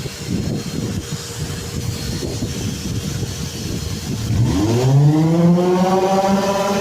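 Irregular rough low rumbling, then about four seconds in an electric motor spins up, rising quickly in pitch and settling into a steady hum.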